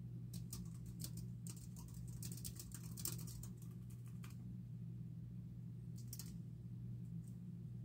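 Typing on a computer keyboard: quick runs of light key clicks for about the first four seconds, a short pause, then a few more keystrokes about six seconds in, over a steady low hum.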